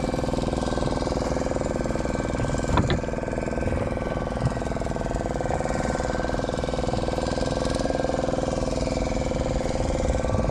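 Suzuki outboard motor running steadily, with one brief knock a little under three seconds in.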